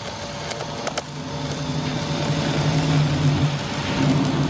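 Sustained electrical arc on a utility pole: a steady buzzing hum with crackle and a couple of sharp snaps about a second in, growing louder.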